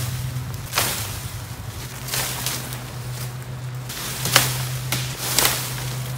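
Leafy cut tree branches rustling and footsteps on dry leaf litter and twigs, with a few sharp crunches.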